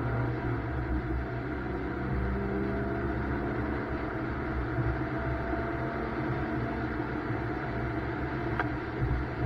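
BMW M2 driven on a wet race track: its engine runs fairly steadily under a haze of road and tyre noise.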